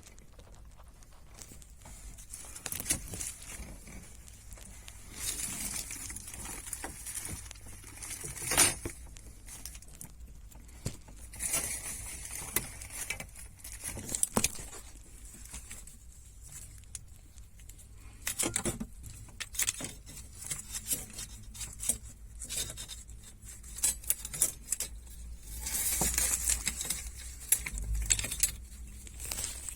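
Hands working with small metal parts and tools: irregular clicks, clinks and rattles with stretches of rustling, and one louder knock about nine seconds in.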